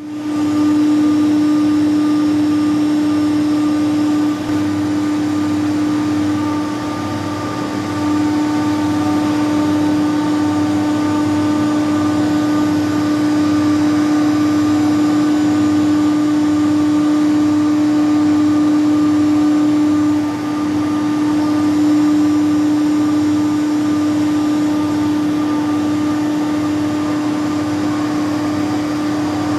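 Doosan VCF 850LSR vertical machining centre running: a loud, steady mechanical hum with one strong pitched tone and fainter higher tones, briefly dipping in level about four and twenty seconds in.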